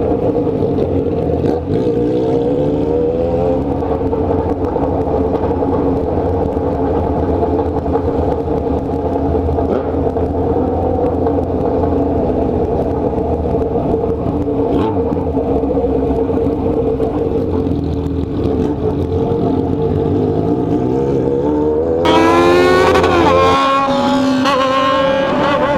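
Yamaha XJ6 N inline-four motorcycle engine running at a steady cruise under a steady rush of wind. About two seconds in the revs rise briefly. Near the end the engine revs hard, climbing, dropping back at a gear change and climbing again.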